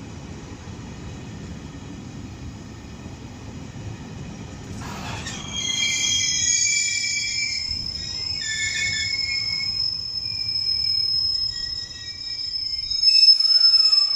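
JR East 719 series electric train pulling into a station: a low rumble of the wheels on the rails, then from about five seconds in a steady high-pitched squeal of wheels and brakes as it slows, several tones at once, loudest just before the end.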